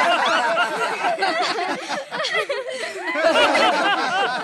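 A live audience laughing, many voices at once, dipping about two seconds in and swelling again a second later.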